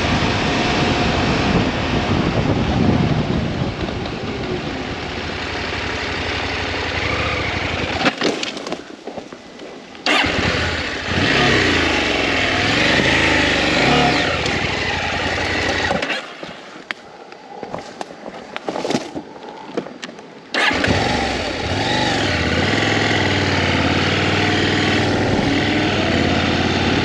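KTM 890 Adventure's parallel-twin engine running as the motorcycle is ridden, with rushing wind noise. Twice the engine sound falls away for a few seconds and then comes back suddenly.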